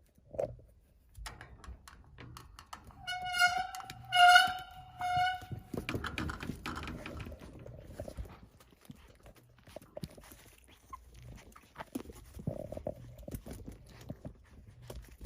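Chihuahua-poodle mix puppy giving three short, high-pitched yips about three to five seconds in, amid scattered clicks and light knocks.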